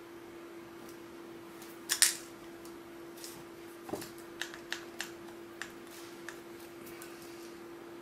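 An old UK three-pin mains plug being pulled from and pushed back into a dirty old wall socket and wiggled: a sharp double click of the pins and plastic about two seconds in, then a run of lighter clicks and taps, over a faint steady hum.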